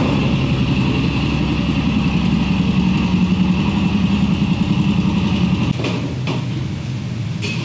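Motorcycle engine idling with a fast, even pulse, cutting off about six seconds in, followed by a few short clicks.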